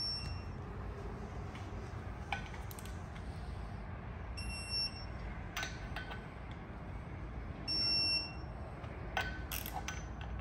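Three short electronic beeps about four seconds apart from a digital torque wrench, each signalling that a flywheel bolt has reached its set torque. Sharp metallic clicks and clanks of the wrench and socket on the bolts come between the beeps.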